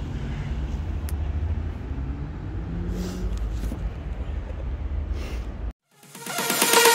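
Wind rumbling on the microphone of a bicycle rider, with road traffic passing. It cuts off suddenly near the end, and electronic dance music starts.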